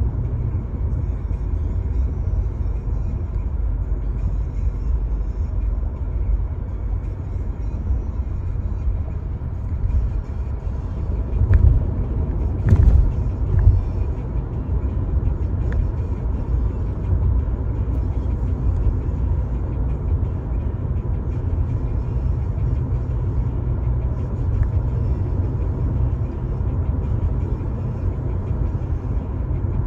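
Road noise inside a moving car's cabin: a steady low rumble of engine and tyres, with a few louder thumps about halfway through.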